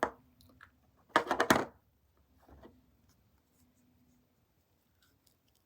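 Scissors and hands working a foam squishy: a click at the start, then a short scraping rustle about a second in and a faint tick a little later.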